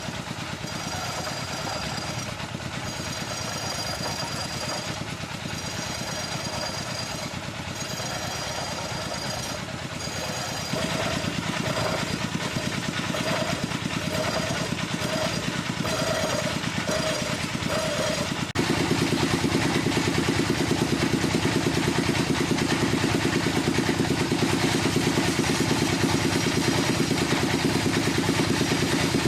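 Woodworking power tools running steadily with continuous machine noise. The sound changes abruptly about ten seconds in and again past the halfway point, where it becomes louder with a stronger low hum.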